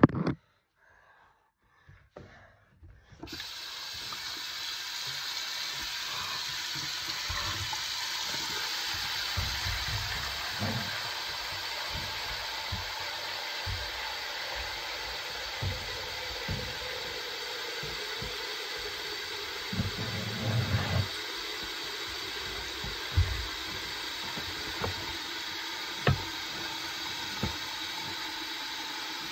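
Bathroom tap running steadily into a sink, starting about three seconds in, with a few soft knocks and bumps against the counter.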